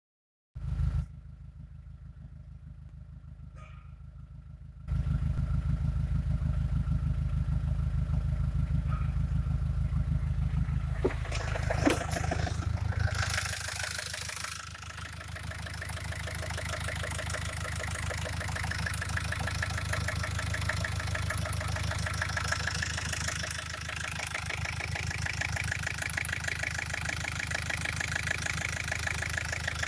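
Fiat Ducato's 2.5-litre four-cylinder turbodiesel catching within the first second and settling into a steady idle, muffled as heard from the cab. About five seconds in it becomes much louder, idling steadily under the open bonnet, with a few clunks around twelve seconds in.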